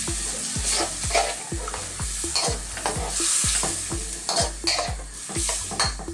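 Bacon and mushroom cream sauce sizzling in a hot wok while a metal spoon stirs it, with repeated scrapes and clicks of the spoon against the pan.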